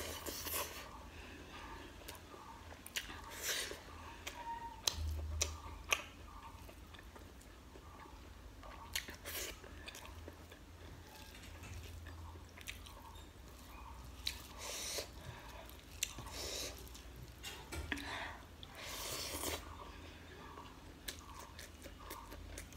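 Close-miked eating of a handful of rice and chicken curry: wet chewing with scattered sharp mouth clicks and lip smacks.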